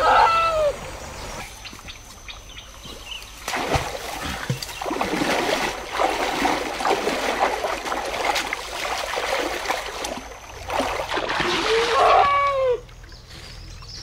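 River water splashing and churning as a man wades and sweeps his hands through the shallows, with a short rising-and-falling call at the start and another about twelve seconds in.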